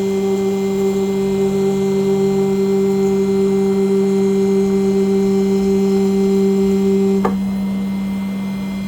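CNC engraving machine running with a steady, high motor whine and hum while cutting an aluminium nameplate. About seven seconds in there is a sharp click, and the higher tone drops out while the lower hum carries on.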